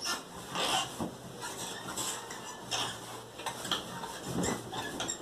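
A cloth hammock being jostled and swayed by someone moving inside it under a blanket: quiet fabric rustling and light scraping in irregular bursts.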